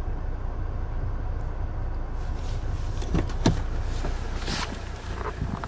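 Volvo S80 2.4D's five-cylinder diesel engine idling steadily after a block-heated cold start at about -13 °C, heard from inside the cabin. From about three seconds in come a few knocks and clicks and a short hiss, the loudest knock about three and a half seconds in.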